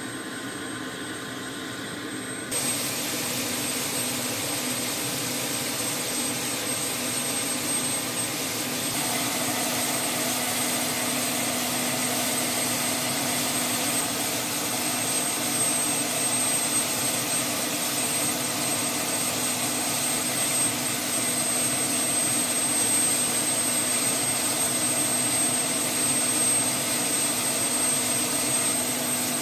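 UH-60 Black Hawk helicopter's turbine running steadily on the ground, a jet-like whine with a thin high steady tone and no rotor beat; it gets louder about two and a half seconds in.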